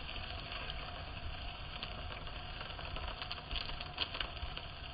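Wood fire burning under a grill grate, crackling with scattered small pops over a steady low rumble.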